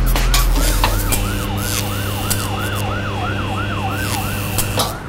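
A siren yelping in quick rising-and-falling sweeps, about three a second, over a steady low hum, cutting off sharply near the end.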